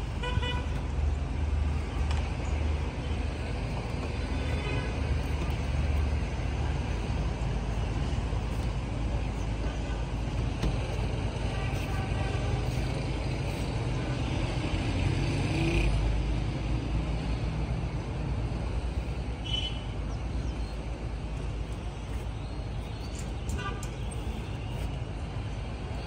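Steady rumble of road traffic with vehicle horns tooting briefly now and then.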